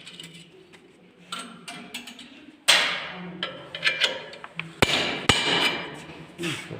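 A hammer striking a workpiece in irregular knocks and clatters, with the loudest blows about a third of the way in and again just past the middle, over a steady low hum.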